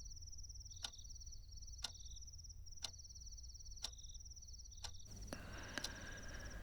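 Faint night ambience: crickets trilling steadily in a high pitch while a clock ticks once a second. About five seconds in, a soft rushing noise rises underneath.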